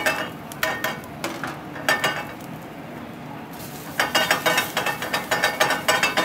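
Metal ladle clanking and scraping against a pan during stir-frying, over a steady sizzle of food frying. A few separate clanks in the first two seconds, then a quick run of clanks from about four seconds in.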